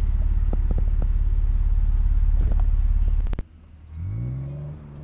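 2001 BMW 325i's 2.5-litre inline-six (M54B25) idling steadily, with a few light clicks about a second in. The idle cuts off abruptly about three and a half seconds in, and a fainter tone that rises and then levels out follows.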